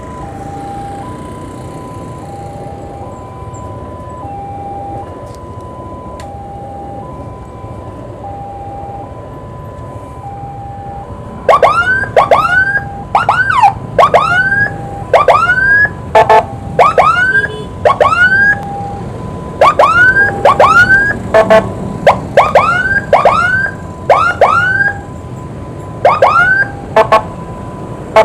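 Emergency vehicle siren: for about eleven seconds a two-tone hi-lo wail steadily alternates between two notes about once a second. Then loud, short rising whoops start, fired in quick irregular bursts of two or three, the sound used to clear traffic on an ambulance escort. Road traffic rumbles underneath.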